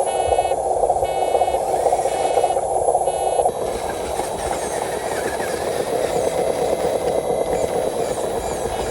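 Radio-controlled truck's motor and gears running steadily, with a beeping about once a second that stops abruptly about three and a half seconds in while the running carries on.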